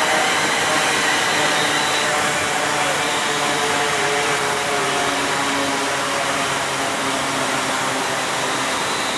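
Alstom Class 390 Pendolino electric train pulling away from a station: a steady loud whirring hum of traction equipment and wheels on rail, with a faint whine that shifts in pitch.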